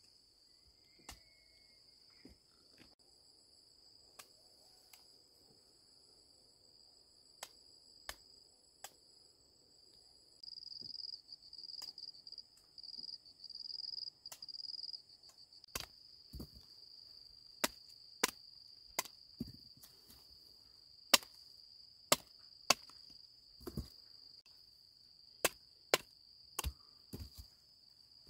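Sharp strikes of a small digging tool into soil and cassava roots, a few scattered early on, then coming about once a second through the second half. Under them insects keep up a steady high-pitched drone that grows louder and pulses for a few seconds in the middle.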